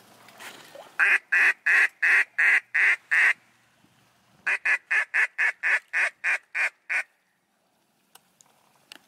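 Duck call blown in two quick runs of short quacks, about seven and then about ten, roughly four a second, calling to a passing flock of teal.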